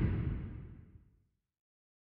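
Low tail of an electronic, dubstep-style outro track dying away, its top end falling off. It fades out about a second in, leaving silence.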